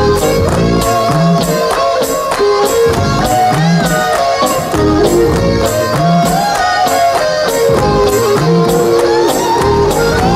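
Background music: an instrumental passage with a melody over a steady beat of sharp, high percussion strokes.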